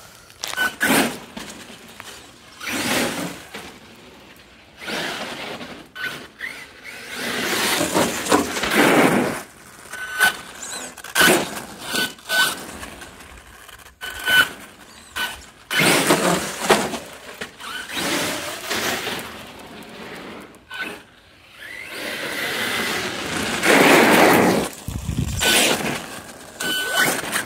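HPI Savage XL Flux brushless RC monster truck running in repeated bursts of throttle, each surge lasting one to a few seconds. Sharp knocks come between the runs.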